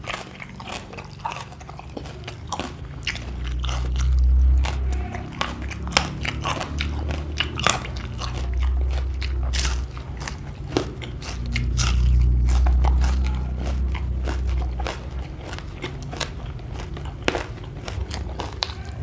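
Close-miked biting and chewing of crunchy food, with many sharp crunches and a few stretches of low rumbling as the mouth works.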